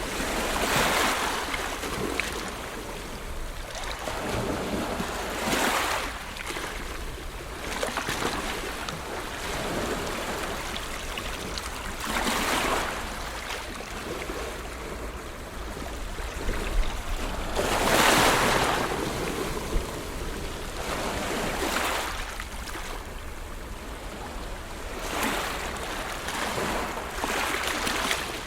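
Ocean waves breaking and washing ashore, the surf swelling into a loud rush every few seconds over a steady hiss of water.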